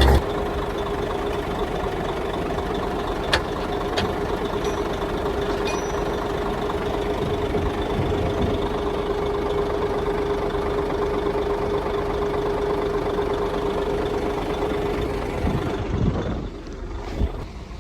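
Heavy diesel earthmoving machinery running steadily with a held whine, and two sharp metallic knocks a few seconds in. The sound drops off near the end.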